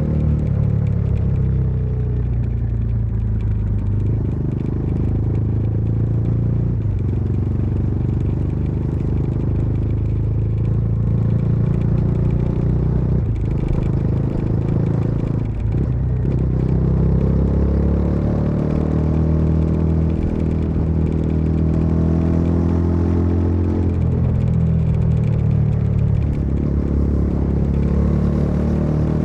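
Bajaj Dominar 400's single-cylinder engine and exhaust under way on the road. The note falls as the bike slows, then climbs again through two quick gear changes around the middle. It holds high, drops once more, and rises again near the end.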